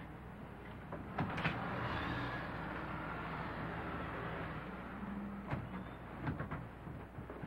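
A glass entrance door clacks open about a second in, letting in a swell of street traffic noise, and knocks again near the end as it swings shut.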